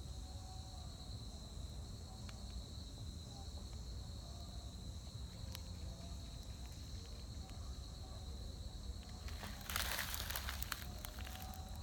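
Steady high-pitched insect drone over low outdoor rumble, with faint distant voices. About nine and a half seconds in comes a louder burst of crunching and rustling lasting a second or so.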